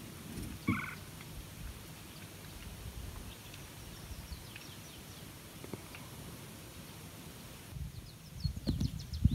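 Wild birds calling: a short two-note call about a second in, faint high chirps scattered through, and a quick run of sharp falling chirps near the end. Low thumps come with the first call and again near the end.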